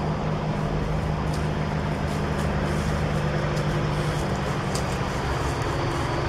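Vehicle engine idling nearby: a steady low hum with an even rushing noise over it, unchanging in pitch.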